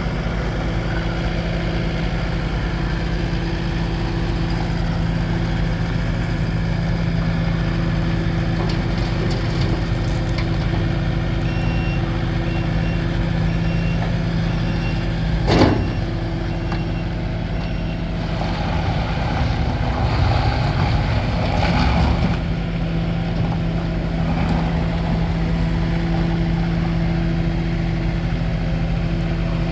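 Kubota SSV75 skid steer's diesel engine running steadily. A short loud burst comes about halfway through, and the machine sounds louder and rougher for a few seconds a little later. A faint intermittent beeping comes just before the burst.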